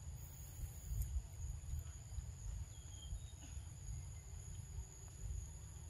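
Steady high-pitched insect drone over a low rumble, with a faint short chirp about three seconds in.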